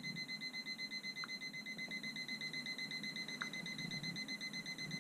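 Electronic temperature alarm on a home weather station's display beeping in a fast, steady pulse, about six beeps a second at a high pitch. It is the alarm set to warn when the RV refrigerator's temperature goes out of range.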